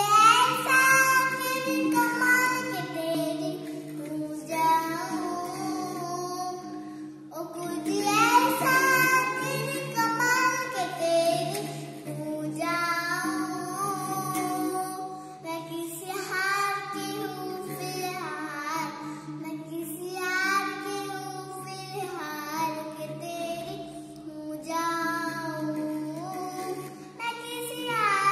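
A young girl singing a melodic song solo, in phrases with short breaks between them, over a steady sustained accompaniment underneath.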